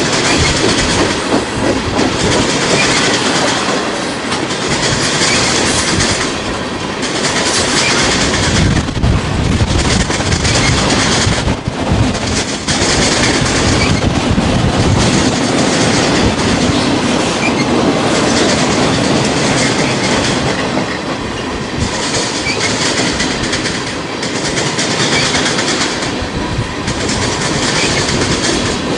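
Freight cars of a passing freight train rolling by close at hand. Their steel wheels rumble and clatter on the track, swelling in a loose rhythm every second or two as each car's trucks pass.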